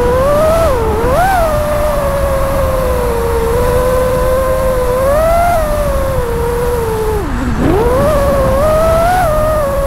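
FPV freestyle quadcopter's brushless motors whining continuously, the pitch rising and falling with the throttle. About seven seconds in the pitch drops sharply, as on a throttle chop, then climbs back up.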